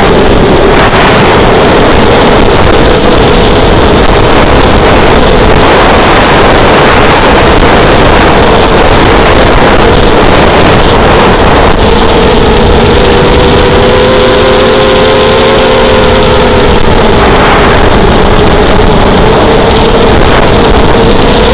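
Racing quadcopter's electric motors and propellers whining in flight under heavy wind noise. The pitch shifts up and down with throttle, mostly in the second half.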